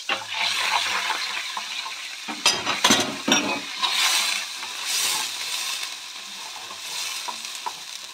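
Diced shallots sizzling as they hit hot butter and olive oil in a stainless steel frying pan, stirred with a wooden spoon. The sizzle rises at once and swells again a few times, and a cluster of sharp clicks and knocks comes about two and a half to three and a half seconds in.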